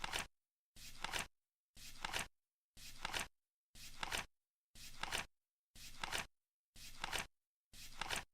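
Flip clock's flaps turning over once a second, each a short flick that ends in a quick double click.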